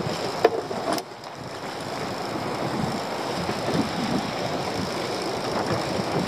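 Steady wind and sea noise on an open boat, with two sharp knocks about half a second and a second in.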